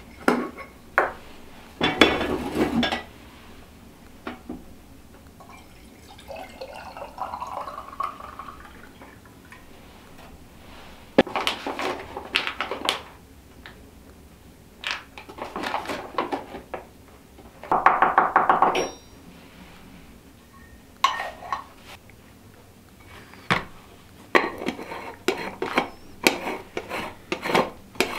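A stovetop moka pot, its funnel basket and cups clinking and knocking on a wooden table as the pot is filled with ground coffee and put together, with a coffee bag rustling in between.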